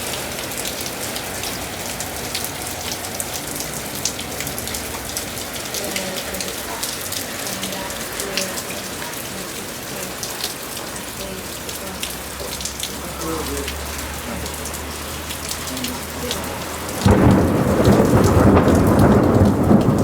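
Heavy downpour of rain, a steady hiss with many sharp drop ticks. About seventeen seconds in, a sudden loud clap of thunder breaks in and rumbles on.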